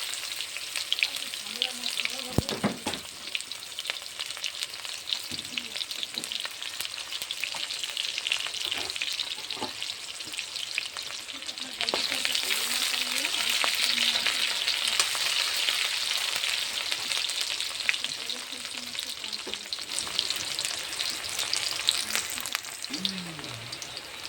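Sliced onions and cumin sizzling in hot oil in a kadai, stirred now and then with sharp clicks and scrapes against the pan. The sizzle grows louder about halfway through.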